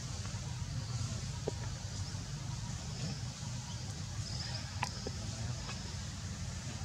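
Steady low outdoor background rumble, like distant traffic or wind, with a faint high hiss and a few brief faint ticks.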